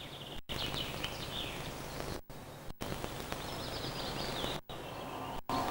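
Small birds chirping over a steady outdoor hiss. The sound cuts out for an instant several times.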